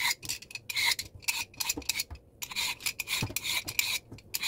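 A vegetable peeler scraping the tough skin off an old yellow cucumber (nogak) in quick repeated strokes, about four a second, with a short pause about halfway through.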